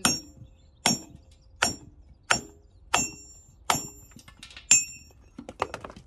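Hammer striking a steel chisel held against a block of building stone: about seven sharp, ringing blows, roughly one every three quarters of a second, then a few lighter quick taps near the end. This is hand-dressing of the stone to bring it into square.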